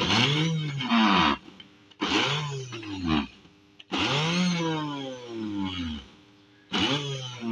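Small electric food chopper pulsed four times, the motor spinning up and winding down in each burst while its blades chop onion, garlic, ginger and green herbs inside the plastic jar. The last burst starts near the end.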